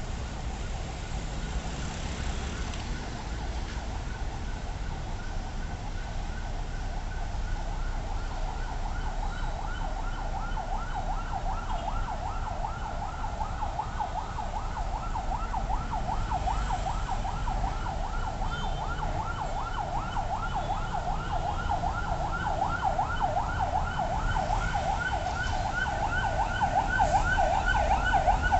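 An emergency vehicle siren sounding a rapid yelp, its pitch sweeping quickly up and down over and over. It grows louder toward the end as it approaches, over a low rumble of street traffic.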